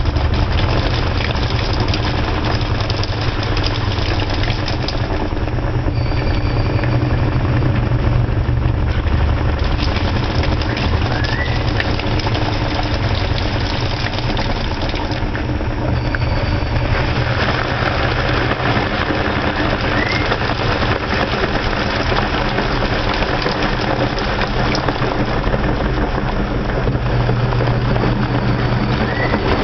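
Electrolux washing machine running through its cycle: a steady loud motor hum and wash noise, with a short rising squeak about every nine seconds.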